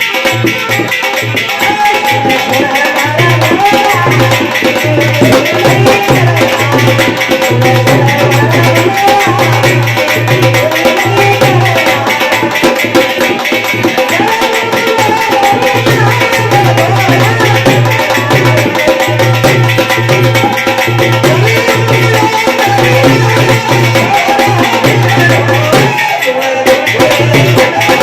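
Loud Rajasthani bhajan music: steady rhythmic hand-drum percussion under a wavering melody.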